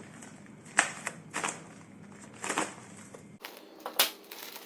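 A knife cutting and breaking open the tape and cardboard of a shipping package: a series of sharp, crackling snaps, about five of them, with the loudest just under a second in and about four seconds in.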